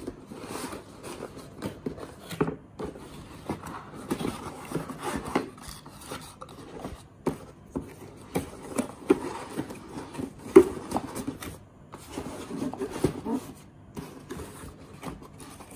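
Cardboard box and packaging being handled: a box flap lifted, and paper and a bag inside rustled and slid, with irregular light taps and knocks. The loudest knock comes about ten and a half seconds in.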